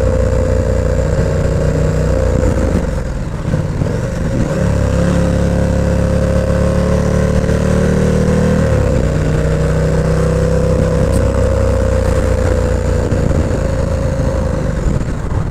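KTM 1290 Super Duke R's 1301 cc V-twin engine running as the motorcycle rides along at city speed, its note changing about three seconds in and again about nine seconds in as the speed eases off.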